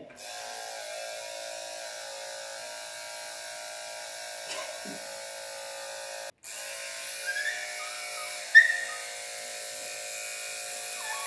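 Electric dog grooming clippers running with a steady hum, cutting out for a moment about six seconds in and starting again. Near the end the schnauzer puppy gives short high whines and one sharp yelp, upset by the clippers.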